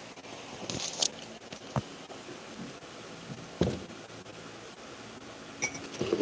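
A few brief clicks and knocks and a short scrape, like small objects being handled, over a steady background hum.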